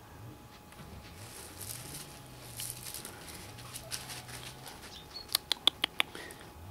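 Faint rustling and scratching as a puppy noses and shifts about on dirt and gravel at a wooden fence, then a quick run of five sharp clicks a little over five seconds in.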